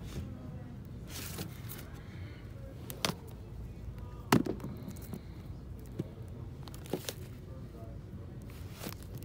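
Shrink-wrapped vinyl record sleeves clacking against each other as a hand flips through a record bin: sharp knocks every second or so, the loudest about four seconds in, over a low steady hum.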